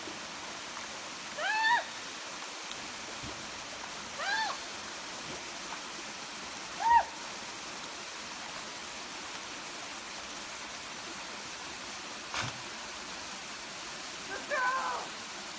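Steady rush of a creek and small waterfall. Over it come short, high cries that rise and fall in pitch, spaced two to three seconds apart, then a double cry near the end.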